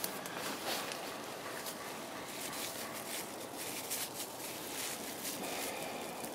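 Faint rustling and crinkling of a plastic grocery-bag strip and stick being handled while it is tied on, over a steady background hiss.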